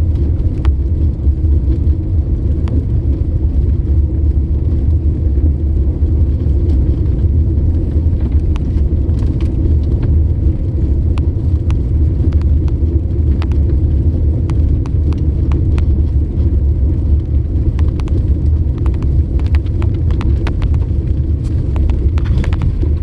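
Steady low rumble of a car driving on the road, heard from inside the vehicle, with scattered faint ticks over it.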